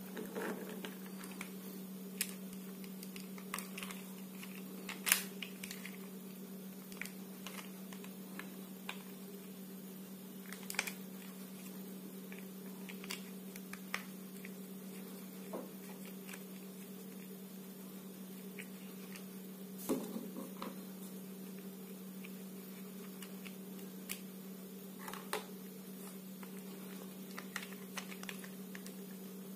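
Scattered clicks and taps of hard plastic as a take-apart toy truck is handled and its plastic screws are turned out with a toy screwdriver, with the sharpest clicks about five and twenty seconds in. A steady low hum runs underneath.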